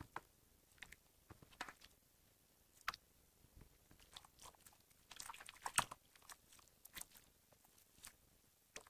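Homemade blue borax slime being squeezed, folded and pressed by hand, giving irregular wet, sticky pops and clicks. A denser run of pops comes about five to six seconds in.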